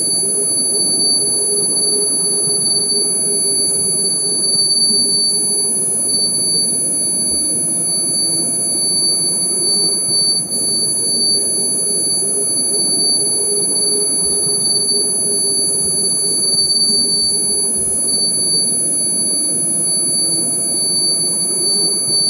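A steady high-pitched electronic ringing tone held over a loud, low rumbling hiss, a sustained sound effect on the dance's recorded soundtrack.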